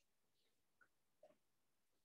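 Near silence: room tone, with a couple of very faint short sounds about a second in.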